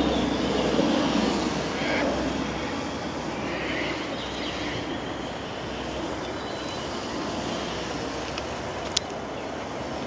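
Wind rushing over the microphone, with the faint thin whine of a micro electric RC plane's motor and propeller high overhead. A single sharp click about nine seconds in.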